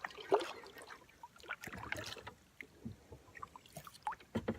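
Kayak paddle blades dipping and splashing in the water, in irregular strokes.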